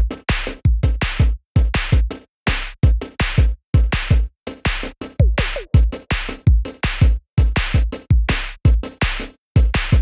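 Electronic background music: a drum-machine beat of deep kick drums and sharp percussive hits with short silent gaps between them.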